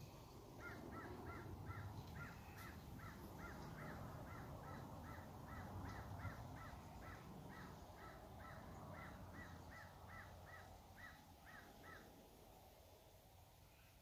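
A bird calls in a fast, even series of short, faint notes, about two a second, which stops near the end. A low rumble runs underneath.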